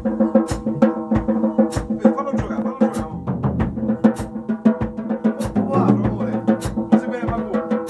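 A band playing: a drum kit keeping a beat of regular sharp hits over sustained bass and chord notes, with heavier low drum strokes twice in the middle of the stretch.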